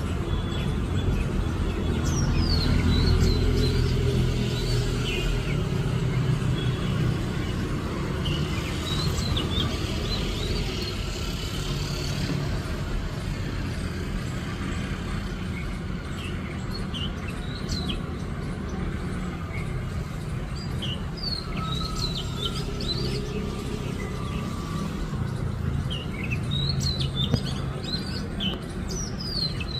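A bird chirping: short, quick high-pitched chirps in scattered clusters, over a steady low rumble.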